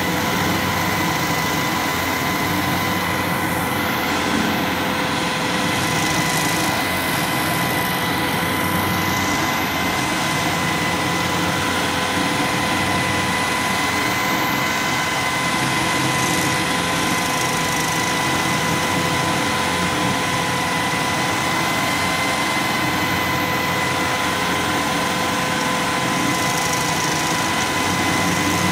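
Tracked stump grinder running steadily, its cutting wheel grinding a stump down into the soil. It makes a continuous engine drone with a steady high whine over it, loud and unbroken throughout.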